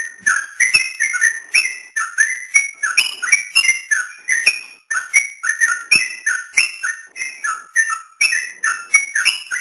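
Yellow-vented bulbul (trucukan) song: a rapid, continuous chatter of short bubbly whistled notes, about three or four a second, rising and falling in pitch.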